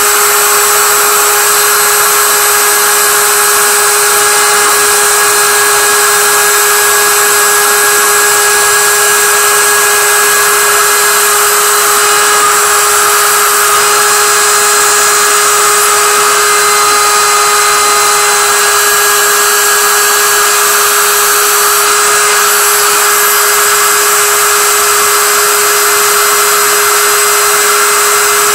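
CNC router spindle milling 1.5 mm brass sheet with a small end mill, running as a steady whine over a hiss.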